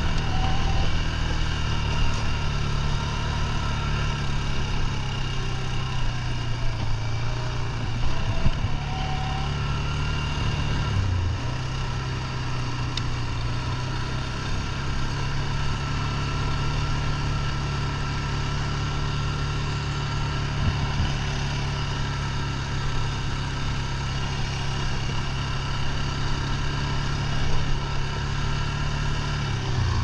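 Polaris Sportsman ATV engine running steadily while riding a dirt trail, heard close up from the machine. The engine note dips briefly about eleven seconds in, then holds steady again.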